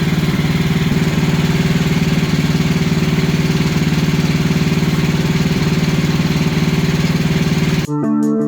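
Wood-Mizer LX55 sawmill's engine running steadily. It cuts off suddenly near the end, and guitar music takes over.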